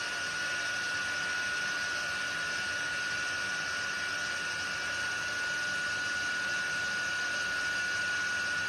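Handheld embossing heat gun blowing steadily: an even fan hiss with a constant high motor whine, heating and melting white embossing powder.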